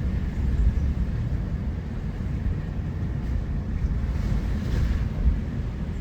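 Steady low rumble of a car driving, with road and wind noise.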